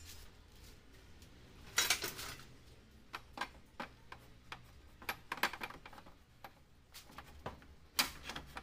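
Scattered clicks and light clatter of small hard objects being handled at a workbench, with a louder rattling clatter about two seconds in and another near the end.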